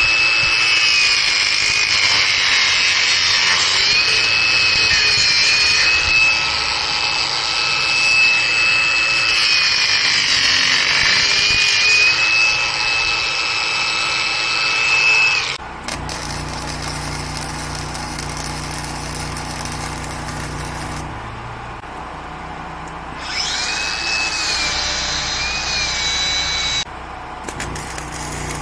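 Electric angle grinder grinding metal, its whine dipping in pitch each time it is pressed into the work and recovering as it eases off. It runs in two spells, a long one stopping about halfway through and a shorter one near the end, with a quieter steady hum in between.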